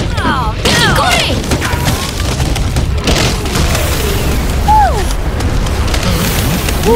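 Edited-in cartoon sound effects over background music: a dense low rumble of booming hits, with falling whistle-like glides near the start and again about five seconds in.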